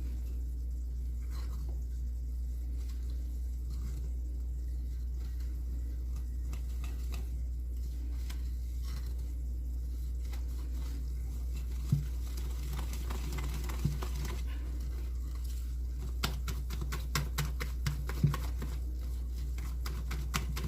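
A whisk stirring flour into thick cake batter in a bowl, with steady rhythmic strokes. In the second half come scattered clicks and knocks of the utensil against the bowl.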